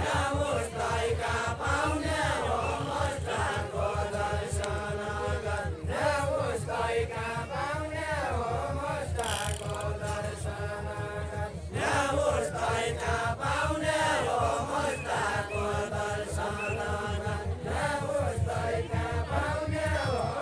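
A group of voices singing a Deuda, the Far-Western Nepali folk song, in long drawn-out chanted phrases, with short breaks about six and twelve seconds in.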